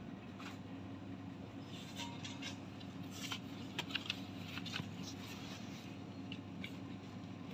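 Light rustling and small clicks of goods on a shop shelf being handled and brushed against, mostly in the middle, over a steady low hum.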